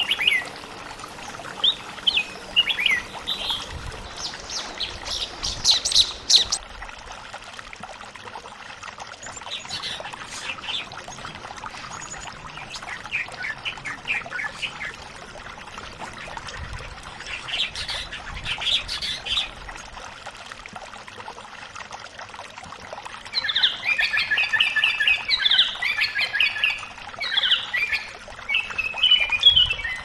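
Bulbuls calling and singing in short groups of whistled notes with pauses between them, becoming a dense, continuous run of song in the last several seconds, over a steady trickle of running water.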